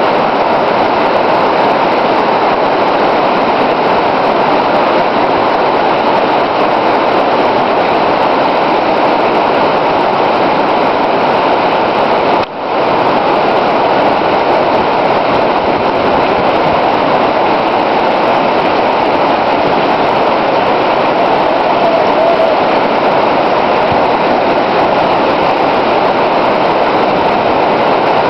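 Whitewater rapids of a rocky creek rushing, a loud, steady wash of water noise that dips briefly about twelve seconds in.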